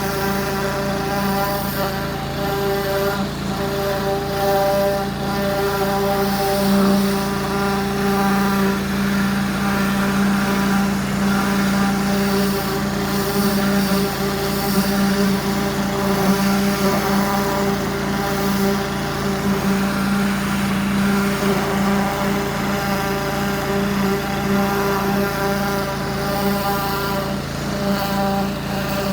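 Pressure washer running steadily: an even mechanical hum with the hiss of the high-pressure water jet over it.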